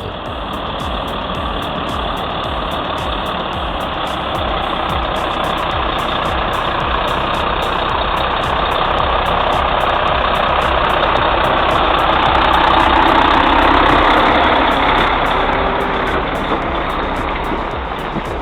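Heavy logging truck's engine running steadily. It grows louder to a peak about two-thirds of the way through, then eases off.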